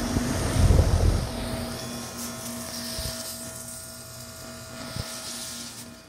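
2008 Goodman heat pump outdoor unit running with a steady mechanical hum, its coil heavily frozen over. A burst of low rumbling on the microphone about a second in, and two faint knocks later.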